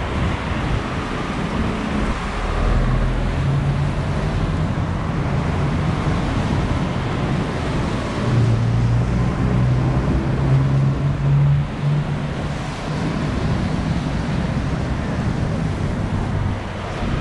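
Traffic on a rain-soaked city street: a steady hiss of tyres on wet road and rain, with a low vehicle engine hum from about three seconds in until about twelve.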